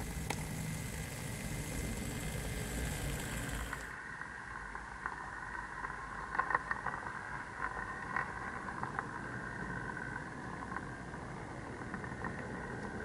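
Model railway train running on the track: first a steady rumble of the passing engine, then, from a small camera riding in a coach, a running hum with scattered sharp clicks of the wheels on the rails, a cluster of them a few seconds after the change.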